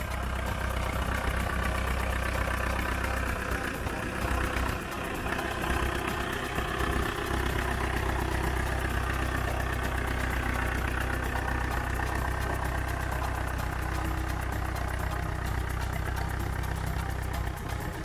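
Vintage tractor engine running steadily at idle, a low, even engine note.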